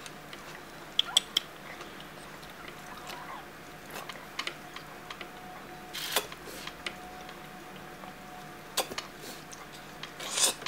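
Scattered soft clicks, squishes and brief hissing rushes from gloved hands working a rubber aspirator bulb at a newborn puppy's nose and mouth, suctioning to clear its airways. The loudest rush comes just before the end, over a faint steady hum.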